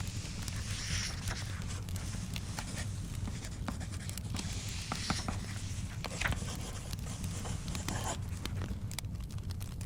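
Layered study ambience: a crackling fire gives scattered sharp pops over a steady low rumble, while paper is scratched and rustled in three longer swells, typical of writing notes and turning pages.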